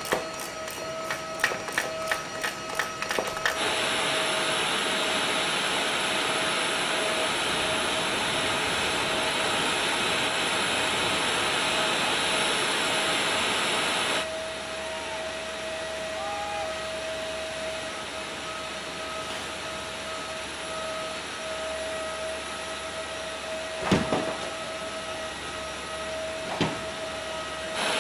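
Ratchet of a cargo tie-down strap clicking quickly for a few seconds, then the steady whine and hiss of aircraft ground equipment running on the flight line, with two sharp knocks near the end.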